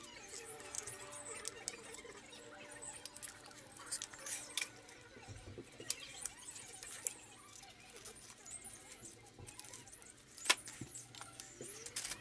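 Hands handling turn-signal wiring and small plastic plug connectors: scattered light clicks and rustles, with one sharp click about ten and a half seconds in.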